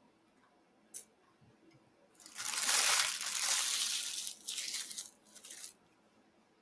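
Loud crunching and crackling close to the microphone, starting about two seconds in and lasting about three and a half seconds, with a short click about a second in.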